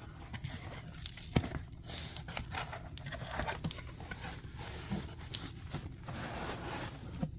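Plastic shrink wrap being torn and crinkled off a sealed trading card box, with irregular crackling and scattered clicks of handling.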